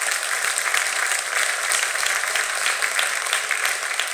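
Audience applauding: dense, steady clapping from many people, easing off near the end.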